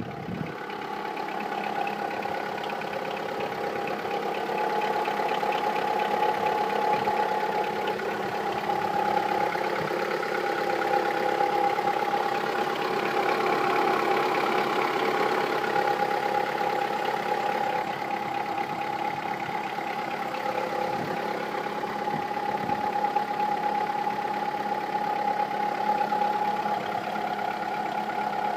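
Seat Ibiza 6L's 1.4 16V four-cylinder petrol engine idling steadily with a fast clacking, rattling noise from the engine, the fault its owner is trying to track down.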